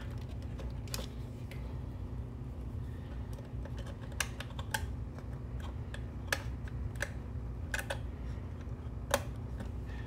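Scattered small clicks and taps, about eight of them, from hands working plastic wire connectors and the circuit-board panel of a garage door opener, over a steady low hum.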